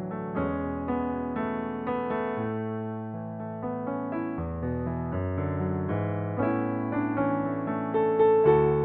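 Background music: a gentle piano or electric-piano piece playing a melody over low chords, with a new note every half second or so.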